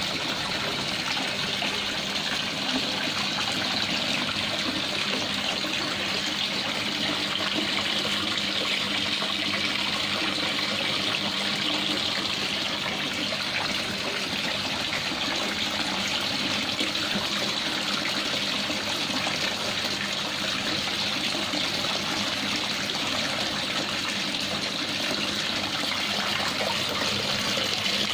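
Water pouring from pipe outlets into a small koi pond: a steady, unbroken splashing trickle.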